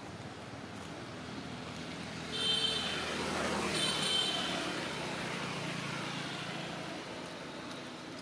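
A motor vehicle passing by, its sound swelling and then slowly falling away, with two short high-pitched tones about a second and a half apart as it goes past.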